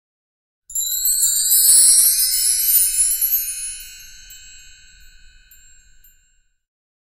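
Sparkly chime sound effect for an animated logo intro: a bright, tinkling shimmer with rising glides that starts just under a second in and fades away over about five seconds.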